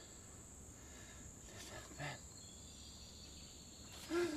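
Faint outdoor ambience with a steady high insect drone, like crickets, and a brief soft sound about two seconds in. A man's voice starts near the end.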